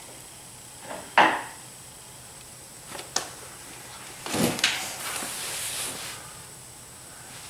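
A few sharp knocks and clatters, the loudest about a second in, a short click near three seconds and a tight group of knocks about four and a half seconds in, followed by a brief rustle.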